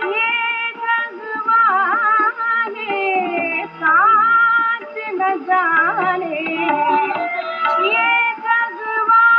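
Indian vocal music broadcast over the radio and played through a vintage Philips transistor radio's speaker. A singer's ornamented, wavering melody runs over accompanying instruments, with no treble above about 5 kHz, as on an AM broadcast.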